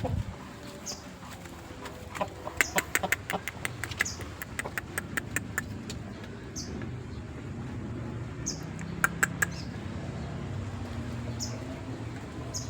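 A chicken breathing with a slight snoring rattle (ngorok), a sign of a respiratory problem, with a faint short squeak about every two seconds. A run of sharp clicks comes a few seconds in, and a few more come later.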